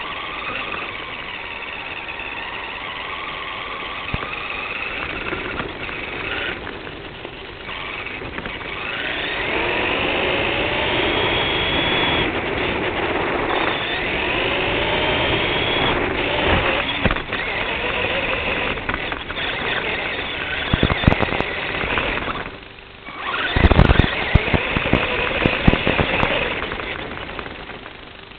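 Radio-controlled car driving, its motor whining and gliding up and down in pitch as it speeds up and slows, over a steady rumble of wheels on the ground. About 21 seconds in, and again from about 24 to 26 seconds, there are a run of sharp knocks and bangs, as of the car hitting bumps.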